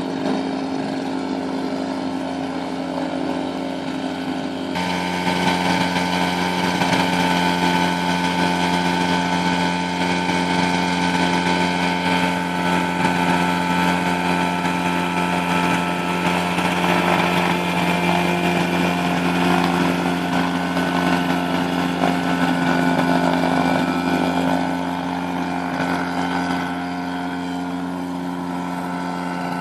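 The Storch's Rotax 582 two-stroke twin engine and propeller running steadily at taxi power. It gets louder about five seconds in and eases off again near the end.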